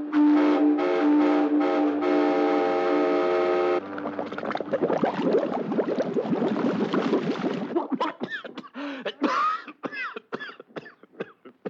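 Studio sound effects of a steam train. A whistle sounds a held chord of several tones for about four seconds, then cuts off into a dense rushing chuff of steam. Near the end comes a run of short gliding pitched sounds.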